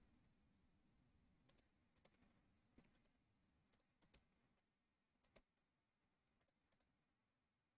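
Faint computer mouse clicks: about a dozen and a half short, sharp clicks, many in quick pairs, from about a second and a half in until near the end.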